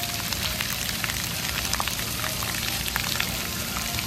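Water spraying and pattering down at a splash pad: a steady hiss with many small droplet ticks.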